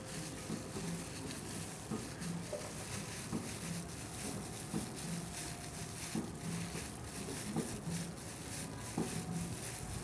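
Clear plastic food-prep gloves crinkling and rustling in many small irregular crackles as the hands press minced pork onto lemongrass stalks, with a faint low pulse repeating about once a second underneath.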